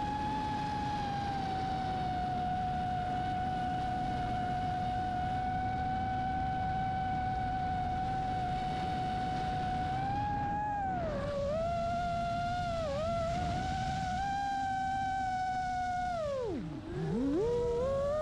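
Brushless motors and propellers of a 5-inch FPV quadcopter, whining at a steady pitch over rushing wind. The pitch dips briefly twice in the middle, then plunges low near the end as the throttle is chopped, and climbs back up again.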